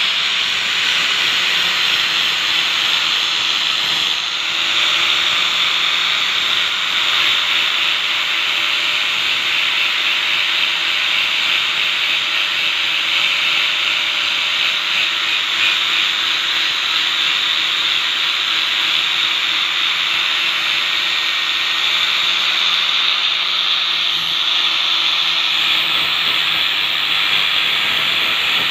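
Electric angle grinder with a sandpaper wheel running steadily against the metal soleplate of a clothes iron, sanding off the burnt-on black residue: a continuous grinding hiss over a steady motor whine.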